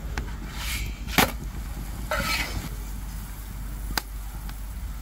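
Wood fire crackling under a saj griddle: a few sharp pops, the loudest about a second in and another near the end, over a steady low rumble and some soft rustling.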